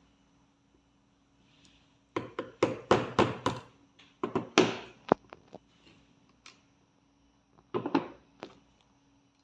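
Sharp taps and knocks of hand tools on metal parts during disassembly of an AR-15 gas control assembly. They come in three short clusters, about two seconds in, around four and a half seconds in, and near eight seconds in.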